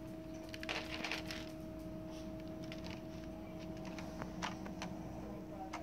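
Light scattered taps, scratches and clicks of a baby's hands on a small plastic toy hand drum, with a denser flurry of clicks about a second in. A steady low hum sits underneath.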